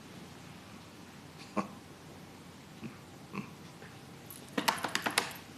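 A few faint, scattered ticks, then about four and a half seconds in a quick run of roughly eight sharp clicks in just over half a second.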